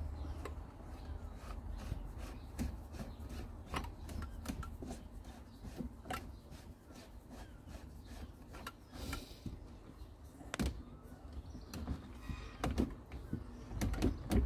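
Plastic threaded pipe fitting on an Evolution Aqua Evo 55 W UV clarifier being screwed back on by hand: a scatter of small irregular clicks and scrapes, over a low rumble.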